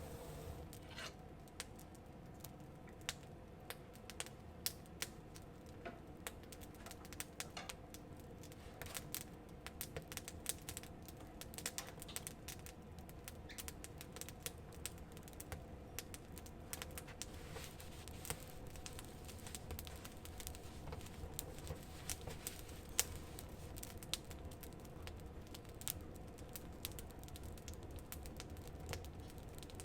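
Wood campfire crackling: irregular sharp pops and snaps, a few louder than the rest.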